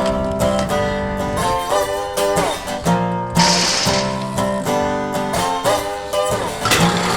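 Background music led by plucked and strummed guitar, with a short hiss about three and a half seconds in.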